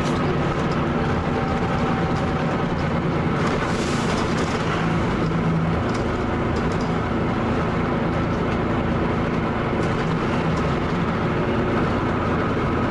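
Leyland double-decker bus's Cummins L10 diesel engine running steadily under way, a low, even drone with a few light rattles.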